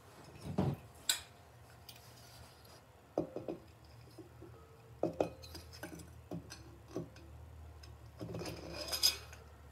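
Motorcycle cylinder head being lifted and handled over its studs: a series of short metal clinks and knocks, then a longer scraping rub near the end.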